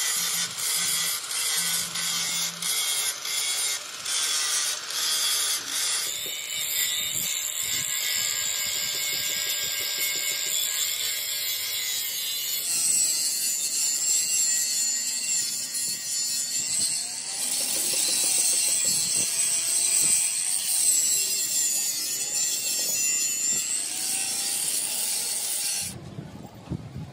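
Angle grinder cutting steel plate: a dense, high hissing whine that wavers in pitch as the disc bites. The sound changes abruptly a few times and falls away about a second before the end.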